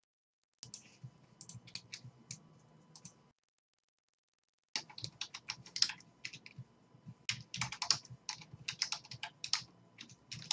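Typing on a computer keyboard: quick runs of clicking keystrokes, broken by two short spells of dead silence, one at the start and one of about a second and a half in the middle.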